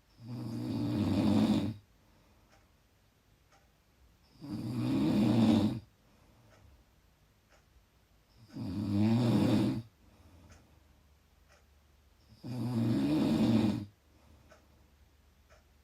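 A person snoring loudly in a steady rhythm: four snores about four seconds apart, each lasting about a second and a half, swelling and then cutting off sharply.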